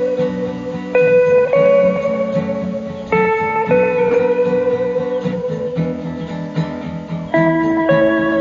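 Guitar instrumental music: a lead guitar plays a slow melody of long held notes over lower chords. New notes are struck sharply about a second in, about three seconds in, and near the end.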